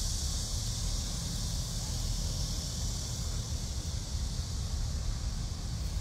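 Car cabin noise heard from inside the car: a steady low rumble with an even hiss above it.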